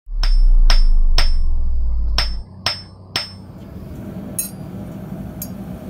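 Hammer blows ringing on a steel anvil: two sets of three sharp strikes about half a second apart, each with a high metallic ring. A loud low drone runs under them and cuts off suddenly after about two and a half seconds. A quieter steady low hum follows, with two faint light clicks near the end.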